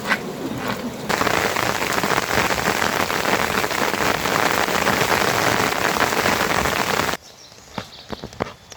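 Heavy rain falling on a surface, a dense steady hiss that comes in suddenly about a second in and cuts off suddenly near the end, leaving only scattered drops.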